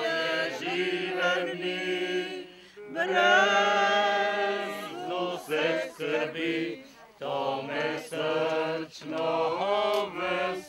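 Several voices singing together, a slow song in long held notes with short breaks between phrases.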